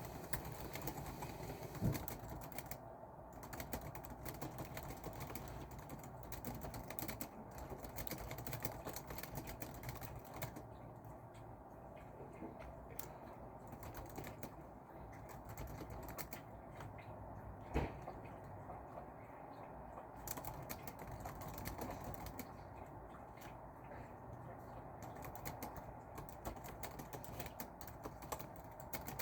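Typing on a computer keyboard: a steady run of key clicks with short pauses. Two louder single knocks stand out, one about two seconds in and one a little past halfway.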